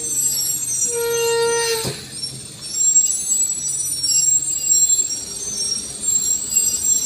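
Metal-on-metal brake squeal from a small truck creeping down a steep, slippery track, high-pitched and wavering. About a second in, a louder, lower squeal tone sounds for roughly a second and then cuts off abruptly.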